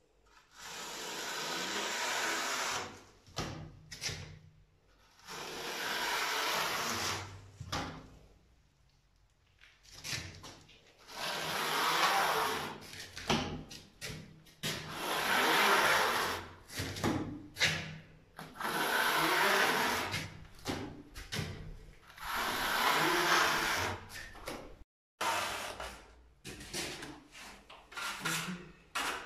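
Steel plastering trowel, a notched trowel, scraping across wet tile adhesive bedded over reinforcing mesh on a wall, combing it into ridges. It goes in long strokes of one to three seconds, repeating every few seconds with short pauses between them.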